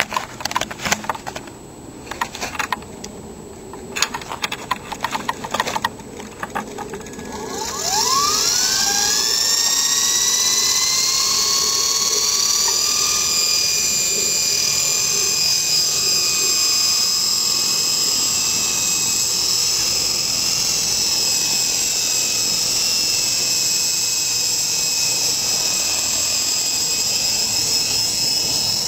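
Small electric fixed-pitch RC helicopter (Hummingbird FP) spooling up: about a third of the way in its motor whine rises steeply in pitch, then holds a steady high whine as the rotor runs. Before that there are scattered clicks and knocks.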